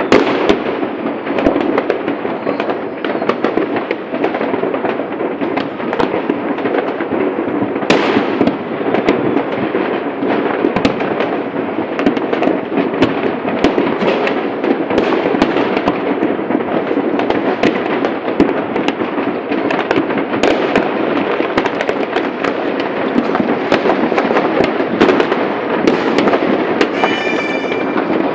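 Many New Year's fireworks and firecrackers going off at once: a continuous dense crackle of overlapping bangs and pops with no let-up. A brief whistling tone sounds near the end.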